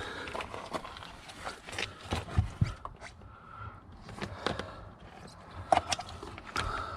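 Hands handling plastic wiring-harness connectors and wires: irregular small clicks and light knocks, with a couple of duller thumps about two and a half seconds in.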